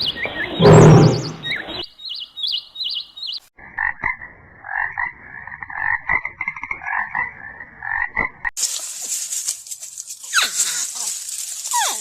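A toad croaking in rapid pulsed trills for about five seconds in the middle. It is framed by the tail of a loud, noisy animal call in the first two seconds, some faint high chirps, and, from about eight and a half seconds, a high hissing sound with quick falling sweeps.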